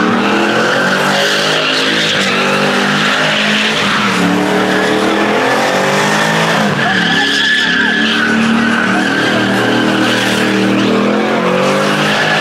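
An SUV spinning donuts: its engine is held at high revs, rising and falling, while the rear tyres squeal continuously against the asphalt.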